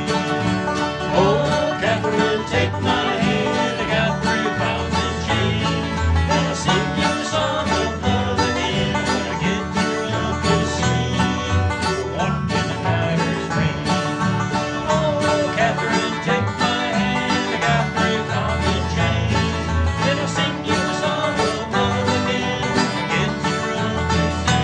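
Acoustic string-band music in a bluegrass style, led by plucked banjo and guitar over a steady bass line.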